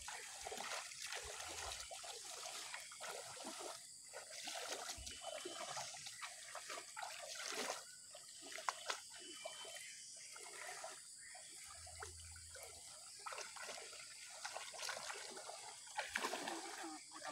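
Faint sloshing and trickling of shallow muddy water as people grope in it by hand and wade through it, with a few small splashes.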